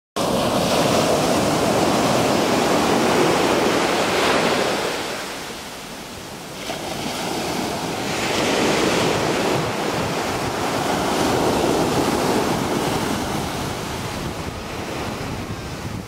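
Ocean surf breaking and washing up a dark gravel beach in slow swells. One wash runs loud for the first few seconds and dies to a lull about six seconds in, then a second wave builds and slowly eases off.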